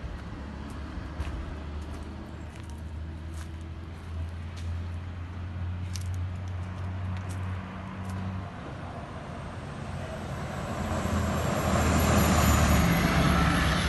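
A car engine running steadily at low revs with a few light clicks. Near the end a louder rush of vehicle noise swells up and begins to fade.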